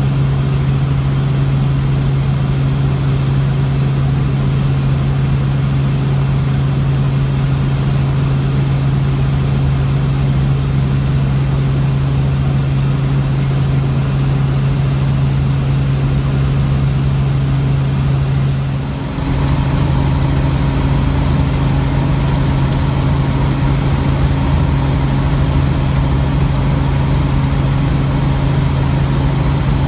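Robinson R44 helicopter in cruise flight, heard from inside the cabin: a loud, steady drone of engine and rotors with a constant low hum. About two-thirds through the level dips briefly and the drone resumes with a slightly different tone.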